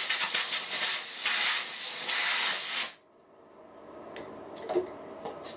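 Compressed-air blow gun hissing in one long blast, swelling and dipping slightly, then cutting off suddenly about three seconds in. It is blowing cleaner out of the bore of a chuck back plate casting before a bushing is pressed in. A few faint clicks of handling follow near the end.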